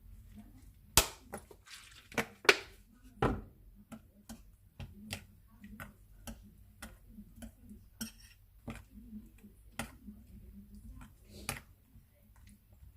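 A spoon clinking and tapping against a bowl in irregular clicks while a sauce is mixed, with a few sharper knocks about a second in, around two and a half to three seconds in, and near the end.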